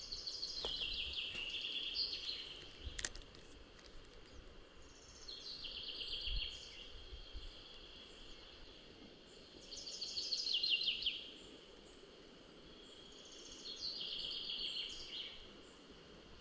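A songbird singing the same short phrase four times, each about two seconds long and made of quick repeated notes that step downward, with pauses of a couple of seconds between phrases.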